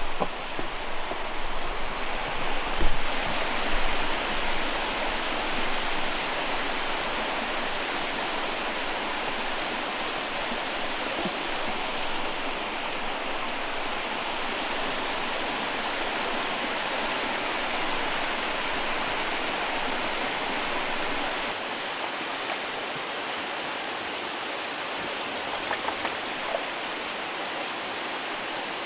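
Steady rushing roar of a large waterfall, with a low bump about three seconds in.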